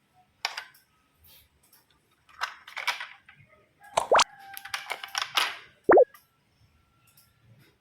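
Plastic toys being handled and clattering in short bursts, with two loud plop sounds, about four and six seconds in.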